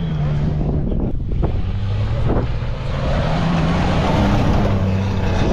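Toyota FJ Cruiser's engine running under load as its tyres churn through loose sand, its pitch shifting a little, with wind buffeting the microphone.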